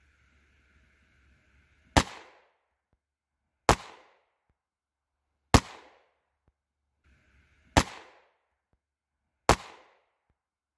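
Rossi RS22M semi-automatic .22 WMR (22 Magnum) rifle firing five single shots about two seconds apart, each a sharp crack with a short fading tail.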